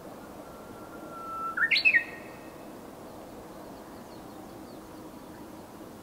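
Japanese bush warbler singing one 'hoo-hokekyo' song: a long steady whistle that jumps up into a quick, louder flourish of higher notes, ending about two seconds in.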